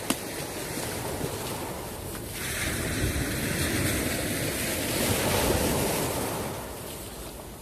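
Sea waves washing, with wind buffeting the microphone. The wash swells a couple of seconds in and eases off near the end; a single sharp click comes right at the start.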